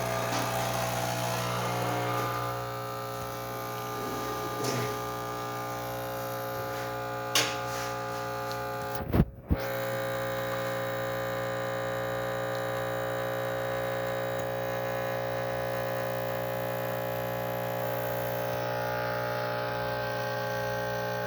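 Nuova Simonelli Oscar's vibratory pump buzzing steadily while it pulls a shot of espresso, with a short break about nine seconds in.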